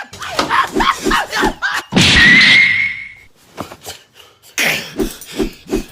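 A run of short thumps and knocks, then a loud crash-like burst about two seconds in that lasts about a second. After a short lull, quick regular thuds follow.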